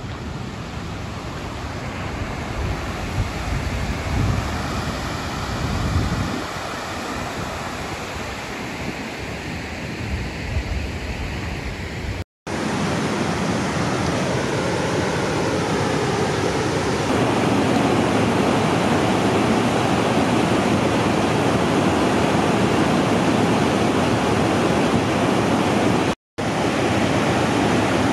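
Steady rushing outdoor noise, with wind buffeting the microphone in low gusts during the first part. The sound drops out briefly twice, at cuts.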